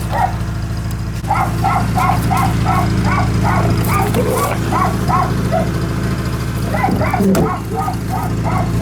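A dog barking in quick, excited yips, about three a second, in runs with short breaks, over a steady low hum.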